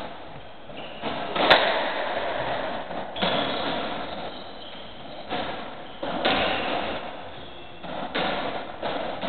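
Racketball rally on a squash court: the ball is struck by rackets and smacks off the court walls in a series of sharp knocks, about six in all, each ringing on in the echoing court. The loudest, sharpest hit comes about a second and a half in.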